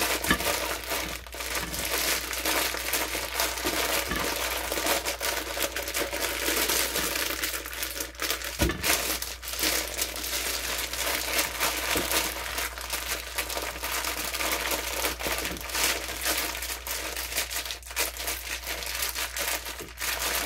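A plastic mushroom grow bag of colonized rye grain spawn being squeezed and kneaded by hand to break the grains apart. It makes a continuous, loud crinkling and crackling, dense with small crunchy clicks.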